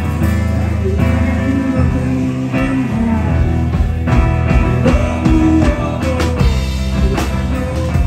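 Live rock band playing: electric guitar, bass and drum kit, with the singer's voice over them.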